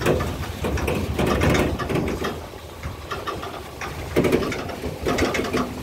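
A vehicle's engine running as it drives along, with a steady low rumble and frequent knocks and rattles.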